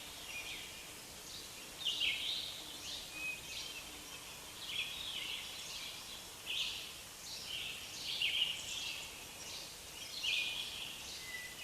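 Forest ambience: several songbirds chirping and trilling in quick short calls, one or two a second, over a steady soft hiss.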